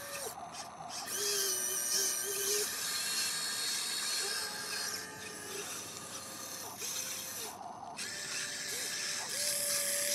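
Huina RC excavator's small electric motors and gearboxes whining in short runs as the arm and bucket dig and lift sand, each run starting and stopping with a quick glide in pitch.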